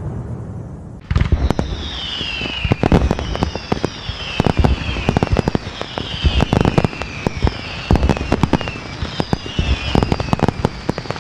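Fireworks going off: a dense run of sharp cracks and bangs starting about a second in, with a repeated falling whistle every second and a half or so.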